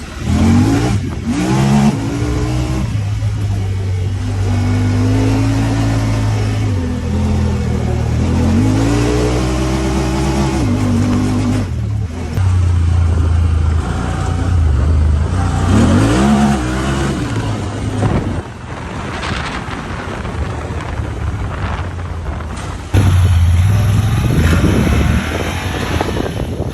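Honda Talon 1000R side-by-side's parallel-twin engine under way, revving up and falling back again and again as it drives over sand dunes, with a steady rush of wind and tyre noise beneath. The sound jumps abruptly a few times.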